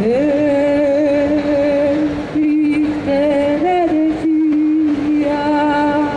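A woman's voice singing one long wordless note, held almost level in pitch after a quick upward slide at the start, with a brief upward bend about midway.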